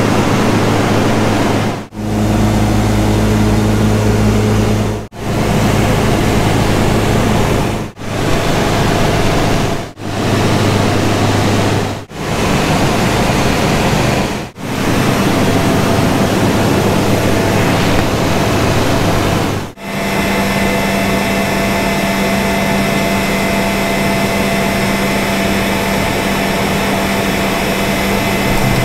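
Small single-engine bush plane's engine and propeller droning steadily, heard from inside the cabin, broken by brief dropouts every few seconds where the clips are cut together. About two-thirds of the way through the engine note changes to a different, steadier hum while the plane is on a gravel strip.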